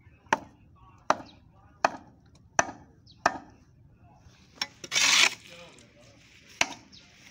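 Steel blade of a long-handled sewer scraper chopping into a heap of wet sludge and roots, sharp strikes about one every three-quarters of a second, then a longer, louder scrape about five seconds in and one more strike near the end.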